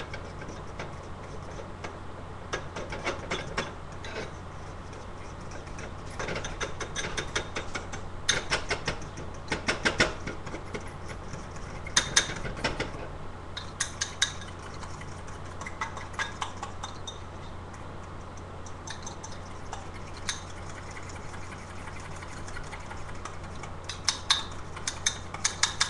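A utensil stirring a ketchup sauce in a bowl, clicking and scraping against the bowl in bursts of rapid ticks every few seconds, over a steady low hum.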